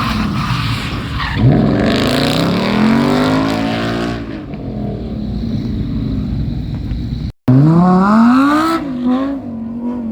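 Car engine revved hard. Its pitch shoots up about a second and a half in, then falls away. After an abrupt cut a little past seven seconds, an engine revs up again and settles into a steady drone.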